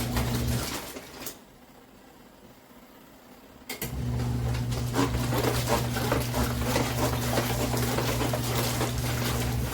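ZenStyle compact twin-tub washing machine's wash motor humming with a rattle as it agitates the load, stopping under a second in, pausing for about three seconds, then starting again about four seconds in and running until it stops at the very end: the stop-and-restart rhythm of the wash cycle's agitation.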